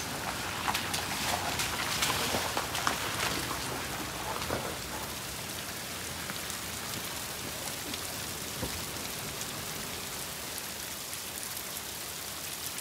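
Thin mountain waterfall trickling and splashing down a rock face, with water running into a held plastic bottle. A busier patter of splashes in the first few seconds, then a steadier hiss.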